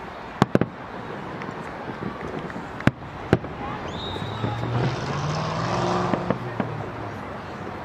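Distant fireworks shells bursting: four sharp bangs in the first three and a half seconds. A vehicle engine then swells and fades as it passes, about four to seven seconds in.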